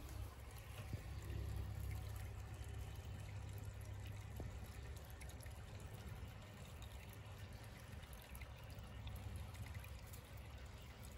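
Faint, steady trickle of water in a garden pond over a low rumble.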